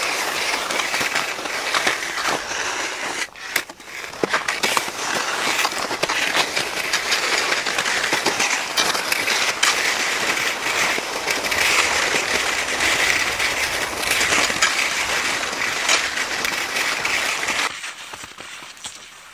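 Cross-country skis sliding and scraping over hard crust snow, with many small clicks from the skis and poles, close to the microphone. The sound falls away sharply near the end.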